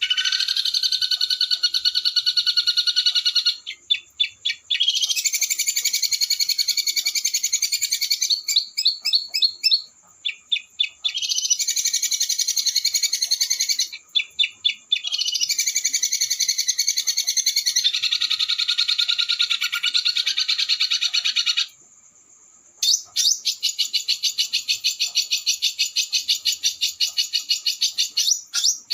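Small songbird singing long, very rapid rolling trills, several seconds each, broken by short runs of separate sharp, rough notes. There is a brief pause about 22 seconds in.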